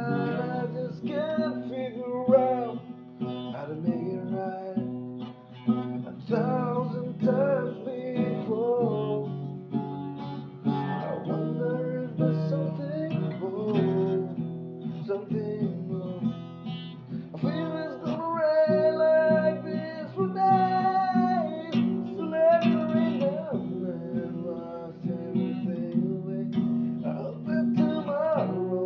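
Acoustic guitar strumming chords while a voice sings a slow ballad melody over it.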